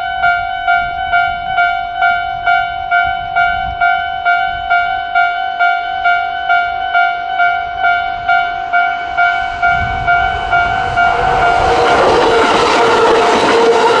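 Electronic warning bell of a Japanese railway level crossing ringing in a fast, even repeat of shrill dings, about three a second. About ten seconds in, a Tobu Nikko Line train approaches, and from about twelve seconds its passing rumble and wheel noise grow louder than the bell, which keeps ringing underneath.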